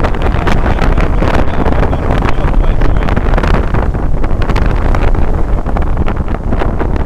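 Strong wind buffeting the microphone over the rush and splash of water along the hull of a sailing yacht under sail.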